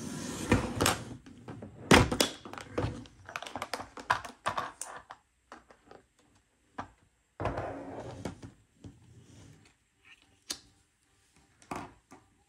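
Cash and paper envelopes being handled on a tabletop: an irregular run of taps, knocks and thunks as things are picked up and set down, with stretches of paper rustling.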